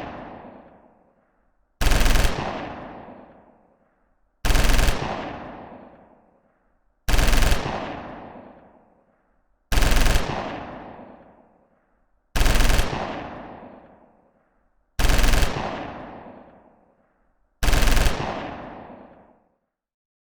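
Machine-gun fire: seven short bursts of automatic fire about every two and a half seconds, each followed by a long fading echo.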